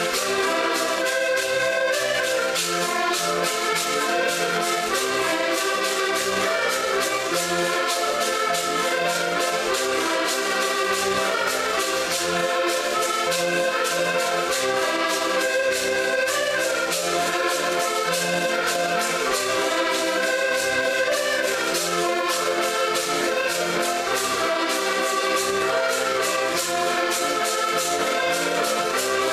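An ensemble of button accordions playing a lively folk tune together, with a steady run of fast clicks keeping the beat.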